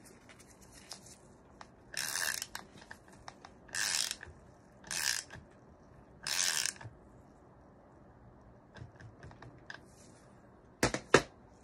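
Ratchet wrench clicking in four short runs as it turns the axle nut of an electric skateboard wheel, with faint ticks afterwards and two sharp knocks near the end.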